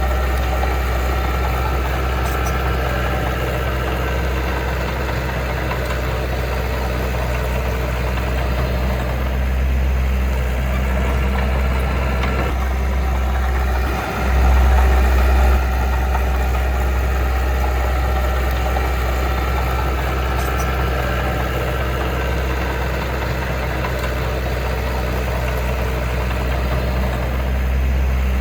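Diesel engine of heavy earthmoving machinery running steadily. About halfway through it drops briefly, then runs louder for a second or so.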